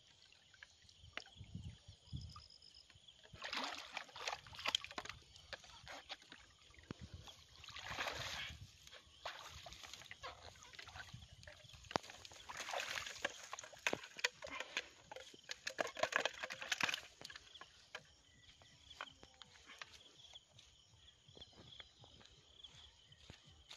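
Water sloshing and splashing in irregular bursts as a person wades through a shallow pond, moving a floating banana trunk, then rustling in grass and weeds at the bank. It is quieter in the last few seconds.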